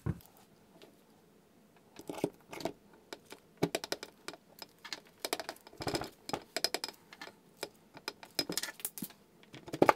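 Yamaha YZ450F crankcase halves being fitted together by hand: irregular light metallic clicks and knocks as the right case slides down over the crankshaft and transmission shafts, starting about two seconds in.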